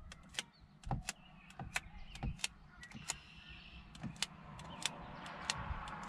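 A sticky dust-removal tab pressed again and again onto a car's touchscreen, making a string of quick, irregular clicks as it touches down and pulls off the glass.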